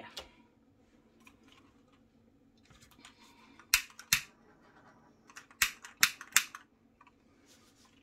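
Small handheld butane torch clicking: six sharp igniter clicks, two about four seconds in and four more around six seconds in, as the torch is worked over wet acrylic paint to pop air bubbles.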